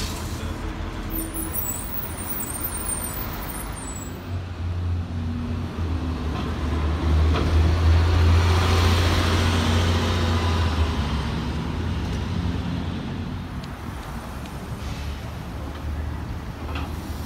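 MBTA city transit bus driving past close by: its engine's low drone and tyre and road noise swell to a peak about halfway through as it passes, then fade into street traffic.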